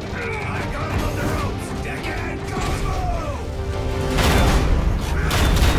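Cartoon action soundtrack: dramatic music with mechanical whirring and gliding robot sound effects. About four seconds in it swells into a louder, noisier rush with heavy bass, the sound of a robot transformation or power-up sequence.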